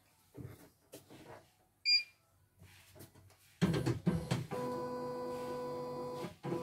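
A short electronic beep from the CNY E900 embroidery machine's control panel, then about three and a half seconds in the machine starts stitching: a steady motor hum with rhythmic needle strokes, pausing briefly near the end.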